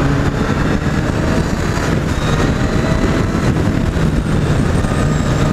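Kawasaki Z800's inline-four engine running at a steady cruise under a loud rush of wind noise, the engine holding an even note throughout.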